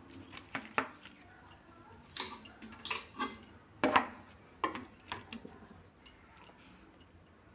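Metal spoon clinking and scraping against a pan in a string of irregular sharp knocks.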